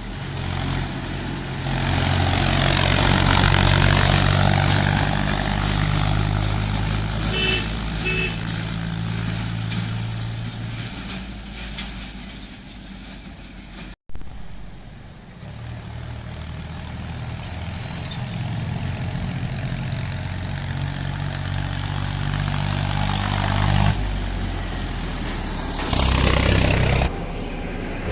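Mahindra tractor diesel engines running steadily on a road, a low engine hum with traffic noise over it. There are two short toots about seven and eight seconds in, and a louder rush of noise near the end.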